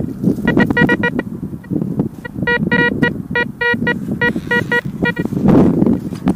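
Metal detector giving repeated short, same-pitched beeps as its coil sweeps over a buried metal target, in two clusters, the second longer. A low rustling of wind and steps on the soil runs underneath.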